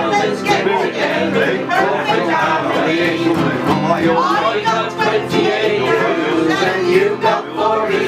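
Live acoustic sing-along: several voices, a woman's and a man's among them, singing over a strummed ukulele and guitar.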